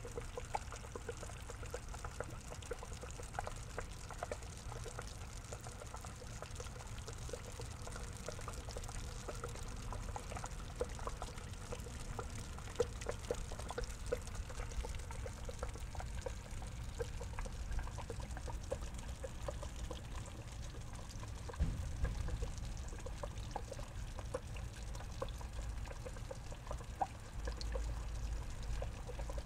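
Water trickling steadily into a garden pond, with many small drips and splashes over a low rumble.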